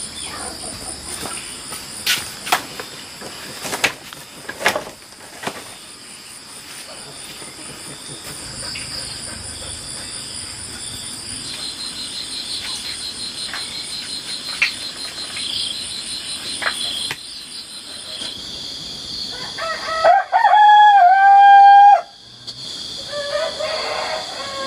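A rooster crows once, a loud call of about two seconds near the end, over a steady high chirring of insects. A few sharp knocks sound in the first few seconds.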